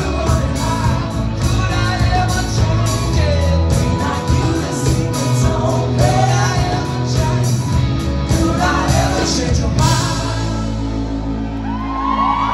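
Live rock band playing with a lead singer: electric guitars, bass guitar and drums. About ten seconds in the drums stop and a held chord rings on as the song ends, and whoops from the crowd start near the end.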